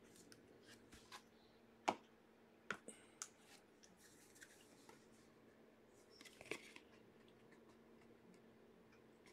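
Near silence broken by a few faint clicks and scrapes of trading cards being handled and set down on a wooden table, the plainest about two seconds in.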